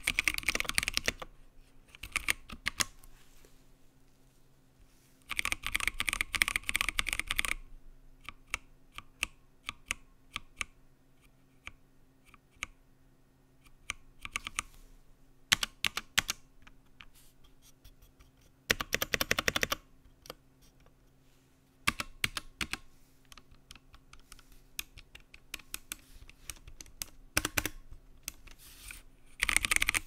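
Massdrop CTRL mechanical keyboard with Kailh Halo Clear tactile switches and double-shot PBT keycaps being typed on: several fast runs of key clacks, with slower single key presses and short pauses between.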